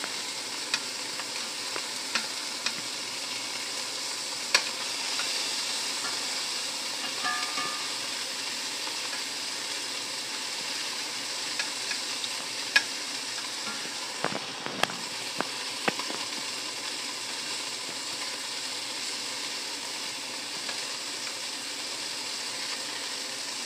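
Chunks of chicken frying in oil in an enameled skillet, a steady sizzle, with sharp clicks now and then as metal tongs turn the pieces against the pan.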